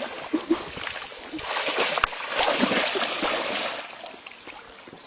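A man splashing and sloshing through shallow water as he struggles up from a fall and wades. The splashing is heaviest in the middle stretch and eases off near the end.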